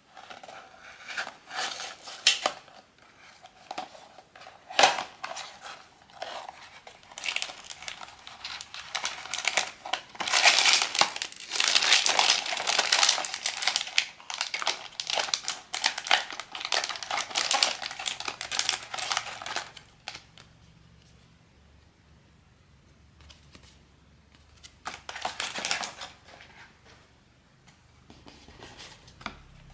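Blind-box figure packaging crinkling and rustling while it is handled and unwrapped, with some tearing. The crinkling is dense for most of the stretch, stops, then comes back in one short burst near the end.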